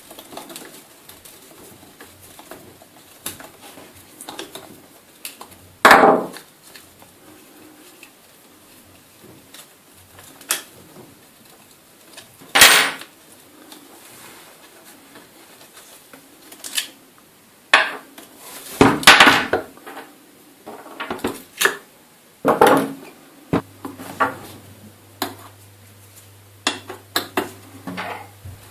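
Hex key, axle bolts and wheels of an inline skate clicking and clattering as the wheels are unscrewed and taken off, with a handful of sharp knocks among the lighter ticks.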